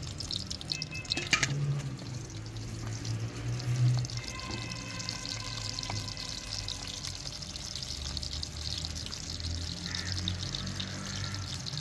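Sliced onions frying in oil in a karahi, a steady sizzle as they start to brown. Faint music-like tones are heard about four to six seconds in.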